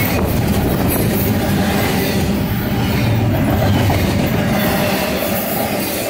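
Intermodal freight cars carrying truck trailers and containers rolling past close by: a loud, steady rumble of steel wheels on the rails.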